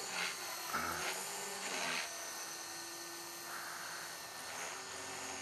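Align T-Rex 450 electric R/C helicopter flying at a distance: a faint, steady whine from its electric motor and spinning rotors.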